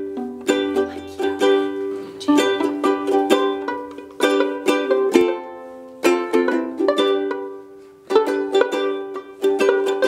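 Ukulele playing an instrumental break between sung verses: quick plucked notes and chords, several a second, each ringing out, with a brief dip in loudness about eight seconds in.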